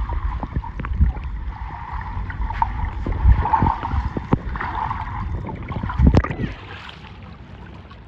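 Motorboat under way on open water: a loud rumble of engine, water and wind on the microphone, broken by irregular hard thumps. The noise drops sharply about six and a half seconds in.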